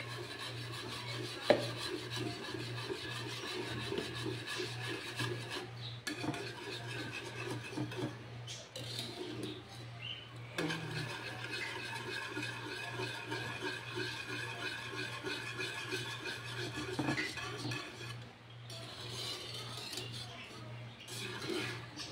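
Wire whisk scraping and swishing steadily around a large aluminium pan, stirring a thick maja blanca mixture of milk and cornstarch as it thickens. One sharp knock about a second and a half in, with a low steady hum underneath.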